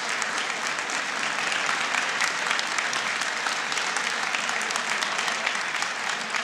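Audience applauding steadily: many hands clapping at once in a continuous, even patter.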